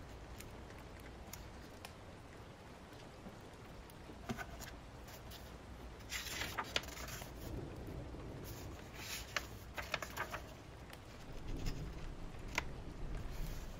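Steady rain ambience with scattered light clicks and brief paper rustles from handling a book and pen while annotating, busiest about halfway through.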